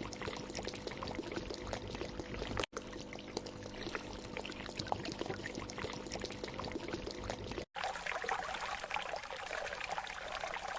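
Flowing, trickling water with fine crackles and splashes, cut twice by brief dropouts; after the second cut, about three-quarters of the way in, it sounds thinner and higher.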